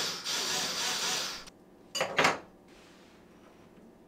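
A cordless drill being handled while a new drill bit is fitted: a steady noisy rattle for about a second and a half, then two short, sharp bursts about two seconds in.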